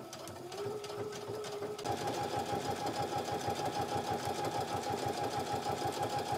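Computerised sewing machine running a blanket stitch along the edge of a quilted placemat's binding, a rhythmic run of stitches. About two seconds in it speeds up and gets louder, then stops suddenly near the end.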